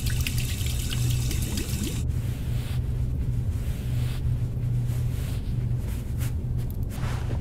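Water running from a tap into a sink for about the first two seconds, then stopping abruptly, over a steady low drone that continues throughout. A few soft, brief sounds follow later.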